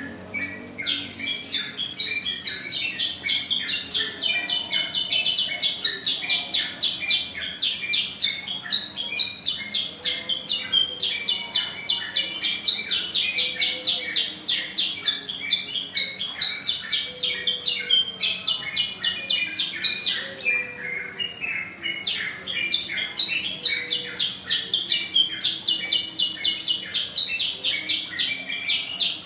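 Caged kutilang sutra songbird singing a loud, long song of rapid, repeated high chirps that runs almost without a break, easing off briefly about twenty seconds in.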